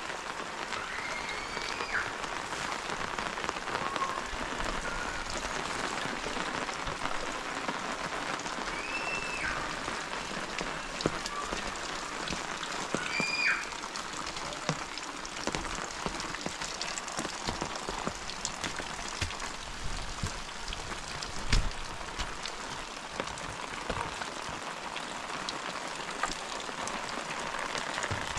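Steady rain falling, with a constant patter of drops. A few short high whistled calls break through early on and about 9 and 13 seconds in, and a dull thump sounds about three-quarters of the way through.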